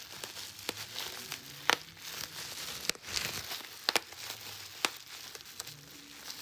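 Plastic bubble wrap being squeezed by hand: sharp, irregular pops of single bubbles over a steady crinkling of the plastic sheet.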